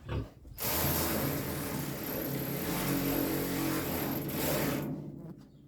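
Handheld power drill running steadily for about four seconds, starting and stopping sharply, as it drives one of the bracket bolts tight.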